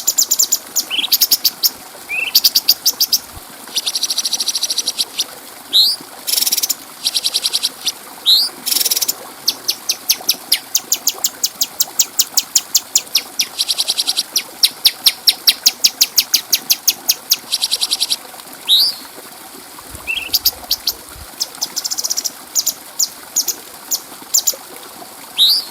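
Cucak cungkok singing with a clear voice: short upward-sweeping whistles alternating with long, fast, high-pitched chattering trills (ngeriwik), repeated throughout over a faint steady hiss.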